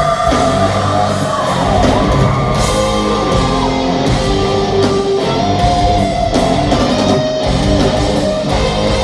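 Live hard rock band playing loud, with electric guitars, drums and held melodic lines, recorded from the audience.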